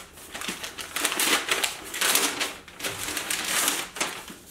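Wrapping paper being torn off and crinkled by hand as a gift-wrapped hardback book is unwrapped, in several rustling bursts.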